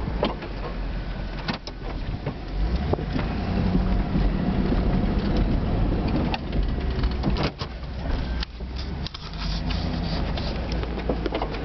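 Three-quarter-ton Suburban plow truck's engine running and changing pitch as it plows snow, heard from inside the cab. Several sharp knocks and clatters are heard, a cluster of them about seven to nine seconds in.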